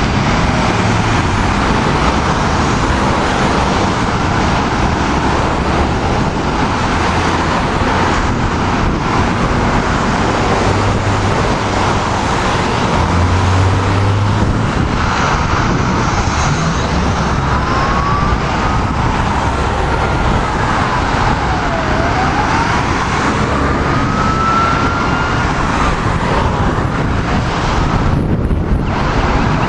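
Loud, steady road and traffic noise from passing vehicles. In the second half an emergency vehicle's siren wails faintly, rising and falling slowly.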